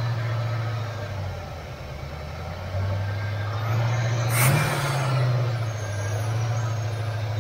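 Chevy 350 small-block V8 running at fast idle on a newly fitted Quadrajet carburetor while it warms up. Its note sags lower about a second in and picks back up near three seconds, and a brief sharp noise cuts through about halfway.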